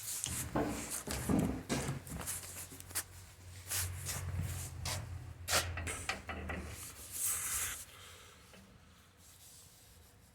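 Irregular knocks, clicks and rattles of objects being handled, lasting about eight seconds before dying away to faint background.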